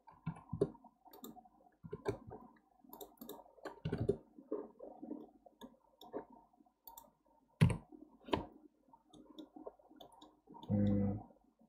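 Scattered computer mouse clicks, irregular and mostly faint, two sharper ones in quick succession a little after the middle. Near the end there is a short voiced hum from the person at the desk.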